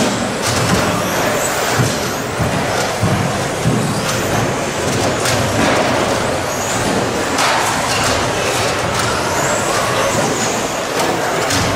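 Radio-controlled stadium trucks racing on a carpet track: a steady rush of tyres, motors and drivetrains, with now and then a faint high whine rising and falling as a truck accelerates and slows.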